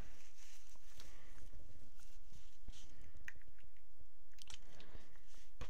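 Faint, scattered small clicks and light handling noises over a steady background hiss.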